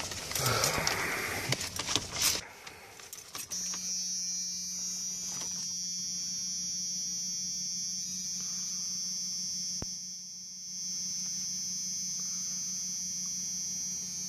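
Clicks and knocks of handling for the first few seconds, then a steady electrical hum with a high whine above it, dipping briefly about ten seconds in.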